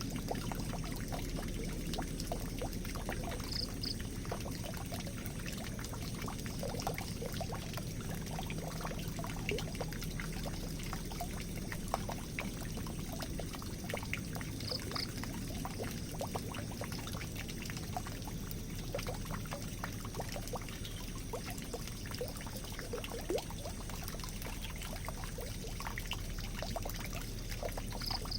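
Water pouring and trickling steadily, with many small splashes and drips. A short, high double chirp comes three times: about four seconds in, about fifteen seconds in, and near the end.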